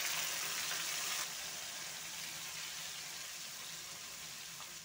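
Hot oil in a kadai sizzling as a wet mix of sliced onion, garlic, spice paste and dry fish is tipped in. The hiss is loudest for about the first second, then settles lower and fades a little.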